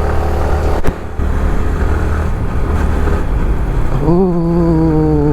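Motorcycle running with wind noise on the microphone while riding: a steady low rumble, with a sharp click about a second in. Near the end a person's voice holds a steady hum-like tone.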